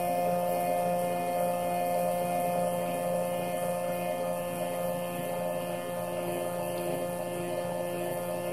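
Arduino-controlled NEMA 24 stepper motor spinning a .308 brass case in a 21st Century neck turner while the cutter shaves the case neck. It makes a steady electric hum with several fixed pitches.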